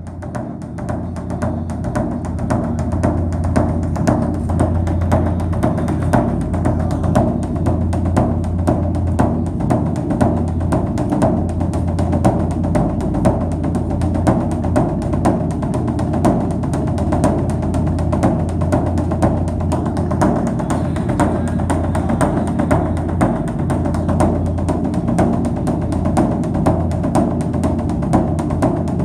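Background music with a steady, quick percussive beat over a low, sustained drone, swelling in over the first couple of seconds.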